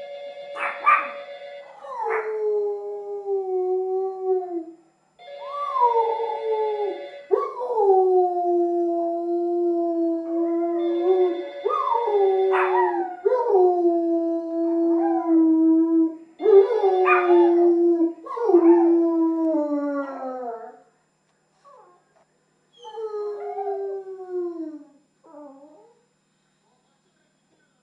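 German Shepherd howling: a string of long howls, each sliding down in pitch at its end, with short sharp yips breaking in at the start of several. A steady held tone sounds in short spells behind the first howls. After a short break, near the end, come a few quieter, broken howls.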